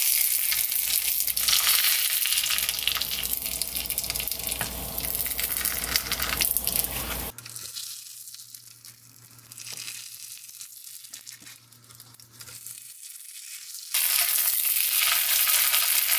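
Pieces of unseasoned pollock skin frying in hot oil in a pan: a loud, steady sizzle that drops suddenly to a much fainter sizzle about seven seconds in and comes back at full strength near the end.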